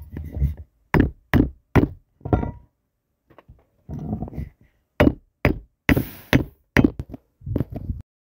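A hand hammer knocking sharply, about ten blows in two quick runs with a pause between them. A brief hiss goes with one blow near the middle.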